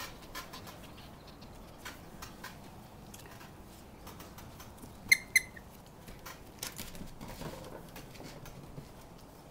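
Puppies' claws ticking and pattering on deck boards as they play. About halfway through come two sharp, high squeaks in quick succession, the loudest sounds here.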